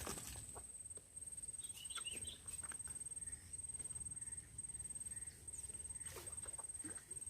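Riverbank ambience: a steady, high-pitched insect trill that swells and dips every second or so, with a few faint bird chirps and light clicks.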